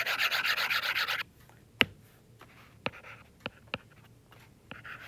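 A stylus scrubbing rapidly back and forth on a tablet's glass screen to erase a drawing, stopping a little over a second in. Then a few sharp taps and light scratches of the stylus tip as it writes on the screen.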